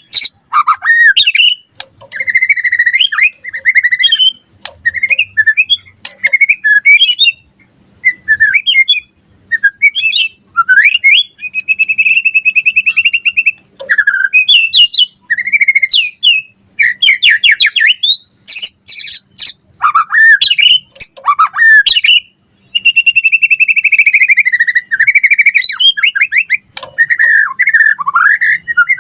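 White-rumped shama (murai batu) singing a long, varied song of loud whistles, fast trills, buzzy rattles and sharp clicks, in quick phrases with short pauses between them.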